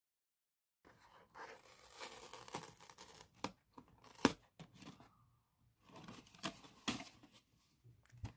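Paper and cardboard being handled: a paper leaflet and a kraft-paper cake box rustle and crinkle, with sharp clicks and snaps of the cardboard, the loudest a little after four seconds. It starts about a second in and pauses briefly near the middle.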